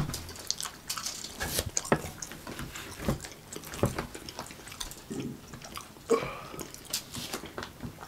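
Fried chicken legs being eaten: scattered wet chewing and mouth smacks, heard as irregular short clicks.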